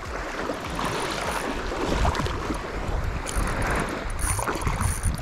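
Shallow water sloshing and splashing, with wind rumbling on the microphone.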